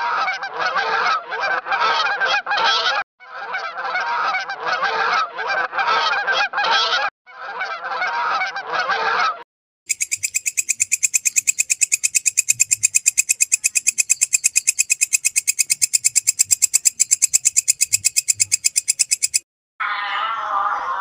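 Swans honking in three bursts of overlapping calls, followed by a grasshopper stridulating: a high, fast, evenly pulsing buzz lasting about ten seconds. Near the end a different, lower animal call begins.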